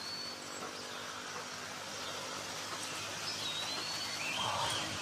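Outdoor background with a few thin, high bird whistles: one long whistle at the start, another a little after three seconds in, then short chirps near the end.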